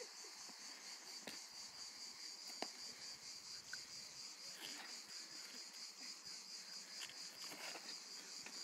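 Steady high-pitched insect chorus, with a couple of faint clicks.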